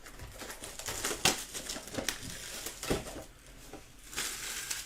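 Plastic wrapping crinkling and crackling as the packaging on trading card mini boxes is handled and opened, with scattered sharp clicks and a denser rustle about four seconds in.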